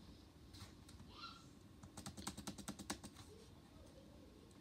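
Faint typing on a laptop keyboard, entering the 'adb install' command: a few scattered key clicks, then a quick run of about ten keystrokes around the middle.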